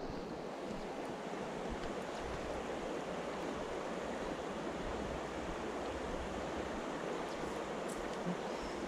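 Shallow mountain stream running over a stony riffle: a steady rushing of water.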